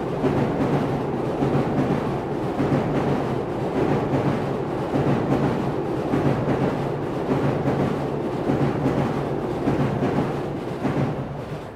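Electric commuter train running over an elevated railway viaduct: a dense, steady rumble and rattle with regular wheel clacks several times a second, easing off slightly near the end. Captured by a Schoeps CCM41+CCM8 mid-side pair alone.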